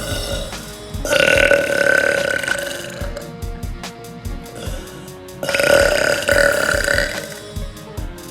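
A woman burping: two long, drawn-out burps of about two seconds each, a few seconds apart, over background music with a beat.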